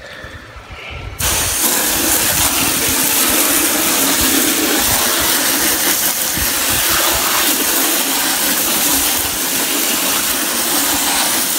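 Pistol-grip garden hose nozzle spraying water, switched on about a second in, then a steady hiss of spray rinsing cleaner off a plastic engine cover and the concrete under it.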